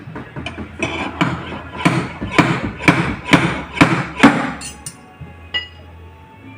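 Hammer blows on metal, about two a second and growing louder, with a metallic ring after each. The blows stop suddenly about four and a half seconds in.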